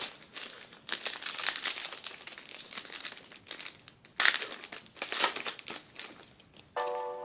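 Trading card pack wrapper crinkling and crackling as it is torn open and crumpled, in several bursts. Near the end a steady musical tone comes in.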